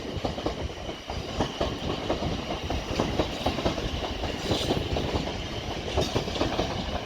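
Pair of Class 450 electric multiple units departing, the wheels clicking rapidly and unevenly over rail joints and pointwork above a steady running rumble.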